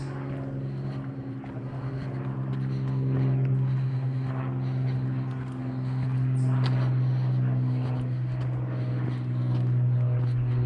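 Steady low engine drone with a humming overtone, getting louder after a couple of seconds, with faint footsteps on a gravel path.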